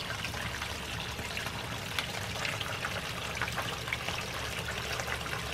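Small tiered garden waterfall running down its steps into a pond: a steady trickle of water with many small splashes.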